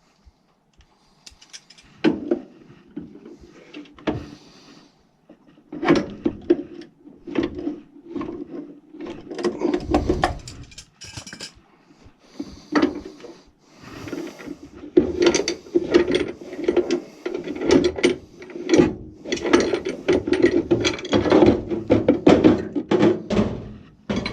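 Hand tools and sheet-metal furnace parts clicking, rattling, knocking and scraping in an irregular run while a gas furnace's cold header box is worked loose and refitted. It is sparse for the first couple of seconds, then busy and louder toward the end.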